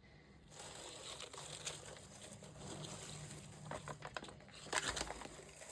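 Paper packaging and crinkle-paper shred rustling and crinkling as hands rummage through a parcel, with a few sharper crackles near the end.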